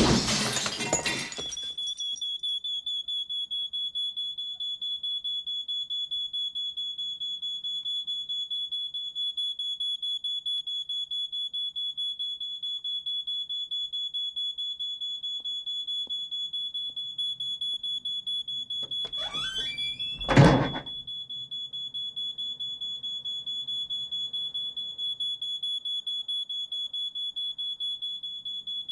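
A steady, high-pitched, rapidly pulsing electronic tone, like an alarm. About 19 seconds in, a quick falling twang is followed by a loud thunk.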